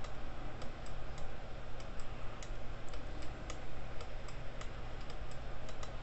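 Light, irregular ticking clicks, a few a second, over a steady low hum.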